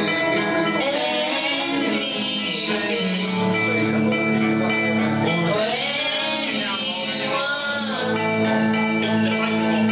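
A boy singing into a handheld microphone over guitar-backed music, his voice gliding up and down in phrases.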